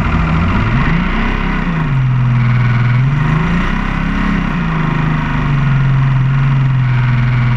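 Racing powerboat's engine running under way, its pitch rising and dropping back twice, then holding steady, with a steady hiss of water and wind over it.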